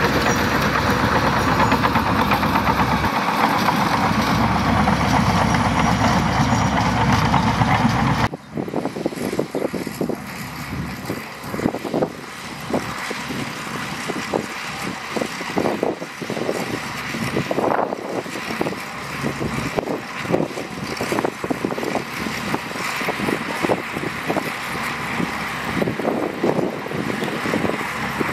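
Shantui DH17C2 bulldozer's diesel engine running loud and steady. About eight seconds in, the sound changes abruptly to a quieter engine with irregular knocks and clanks.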